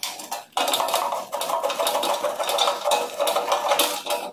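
Screwdriver scraping and clinking against a sheet-metal electrical panel box cover as the cover is worked loose, a dense run of metallic scrapes and rattles that starts about half a second in.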